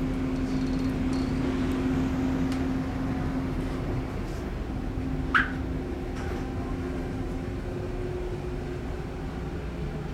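Steady low drone and hum of a car ferry's engines and shipboard machinery, heard from inside the passenger deck. A short, sharp rising squeak about five seconds in, with a few faint clicks.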